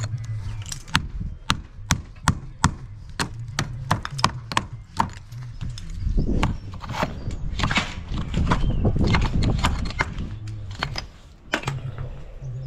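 Masonry work: a run of sharp, hard knocks about three a second, then a few seconds of rougher scraping and rattling with scattered knocks, over a steady low hum.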